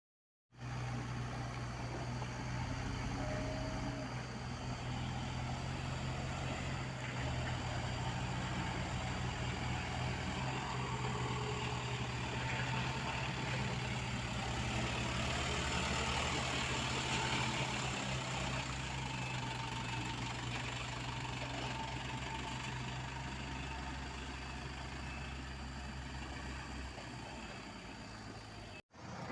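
Dump truck's diesel engine running steadily at low revs. It starts abruptly about half a second in and cuts out for a moment near the end.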